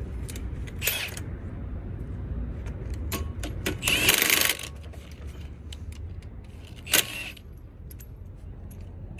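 Metal parts and tools being handled while a wheel is refitted: scattered clinks, a short rattle about four seconds in and a sharp metallic knock about seven seconds in.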